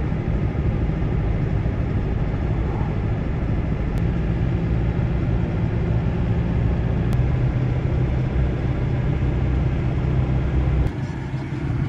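GAZelle Next van driving, heard from inside the cab: a steady low drone of engine and tyres on a snowy road. The engine note shifts a couple of times, and the level dips briefly near the end.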